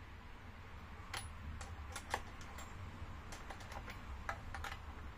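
Scattered small metallic clicks and light rattles as a saw chain and guide bar are handled and fitted onto a Stihl MS 271 chainsaw's bar studs. The sharpest click comes about two seconds in, over a steady low hum.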